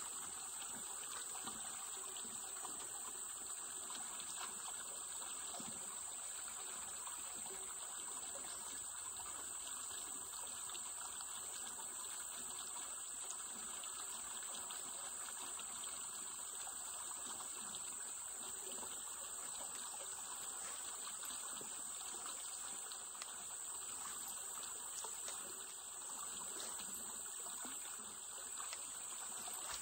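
Steady creek-side ambience: water trickling and flowing, with a constant high-pitched hiss above it.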